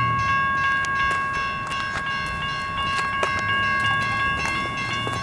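CN #8005's locomotive horn sounding for the grade crossing, held as one long steady chord, with scattered clicks and knocks over it.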